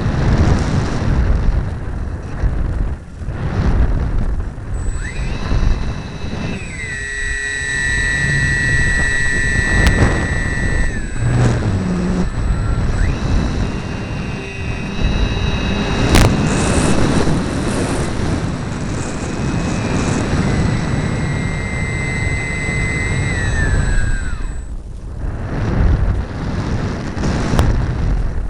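Wind rushing over the onboard camera of a flying RC model airplane, with the motor's whine running over it. The whine shifts in pitch with the throttle and glides down near the end.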